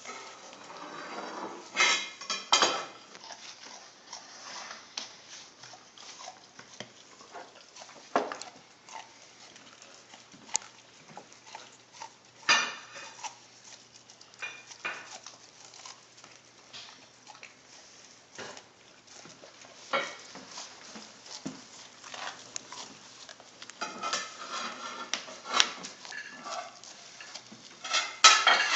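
Welsh Corgi chewing and gnawing corn on the cob: irregular crunching and clicking of teeth on the cob, loudest about two, eight, twelve and twenty seconds in.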